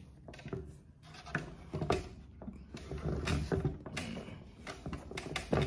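Sneakers being handled and moved about: a series of irregular light knocks and clicks with some rustling, the loudest knock near the end.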